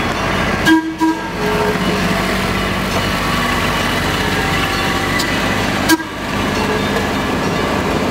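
Utility vehicle and forklift engines running as they pull away, with two short horn toots about a second in and a brief sharp sound near the end.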